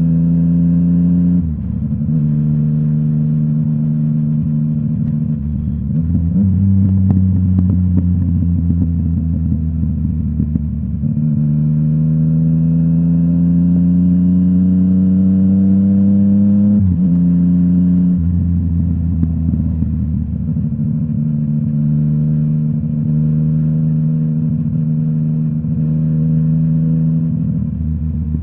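Yamaha MT-09's inline three-cylinder engine through a full Akrapovic exhaust, ridden on the road: the note climbs under throttle and steps down sharply at gear changes, about a second and a half in and again around seventeen seconds, with a long steady rise in pitch between about eleven and seventeen seconds.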